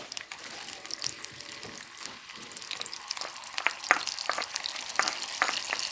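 Boiled red lentils frying as they go into hot oil in a metal wok: a sizzle with sharp pops, the pops coming thicker from about halfway as more lentils land in the oil.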